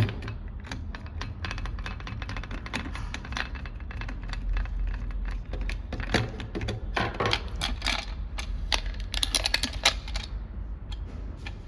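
Rapid, irregular clicking and rattling of small hard parts being handled, busiest about halfway through and again near the end, over a steady low hum.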